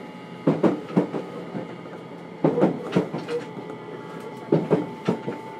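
Wheels of a JR Kyushu 303 series electric train knocking over track joints, heard from inside a motor car: three groups of two or three sharp knocks about two seconds apart. Underneath runs a steady rumble with a thin electrical whine from the Hitachi IGBT VVVF drive, and a new steady tone comes in near the end.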